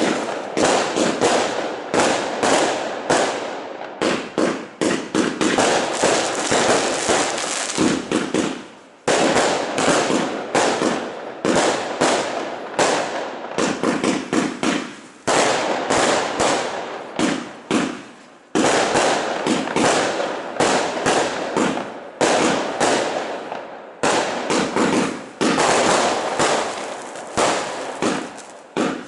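Many fireworks going off at once: rockets bursting and firecrackers crackling in rapid, overlapping bangs. The din fades briefly and then flares up again with a sharp bang several times.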